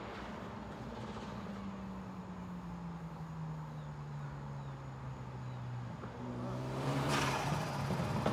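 Hyundai Veloster Turbo's 1.6-litre turbocharged four-cylinder running with its note slowly falling, then revving up near the end with a short burst of turbo flutter about seven seconds in. The flutter comes from the blow-off valve's vacuum line being disconnected, so the valve stays shut and the compressor surges when the throttle closes.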